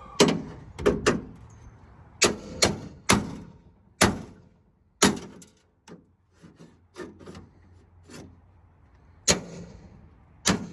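A series of about ten sharp knocks and clicks at irregular intervals, some in quick pairs, as of hard parts being handled and a door mechanism being worked.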